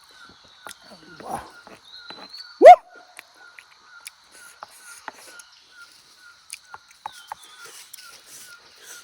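An animal's short, loud squeal rising sharply in pitch about three seconds in, over a steady high buzz and a faint chirp repeating about twice a second.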